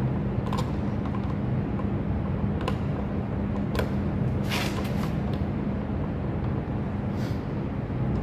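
Steady low mechanical hum with a few small clicks and one short scrape about halfway through, as a hand screwdriver works the Phillips screws on a winch's control box.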